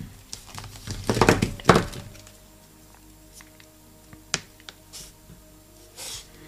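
Soft background music, with knocks and clatter of metal paint tubes being handled and set down on a table between about one and two seconds in, then a single sharp click.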